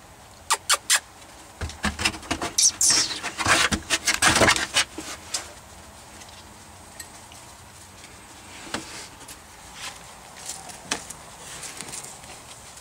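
Scattered clicks and scuffs from Boykin spaniel puppies moving about on a wooden floor, busiest in the first five seconds, with a brief high squeak that falls in pitch about three seconds in.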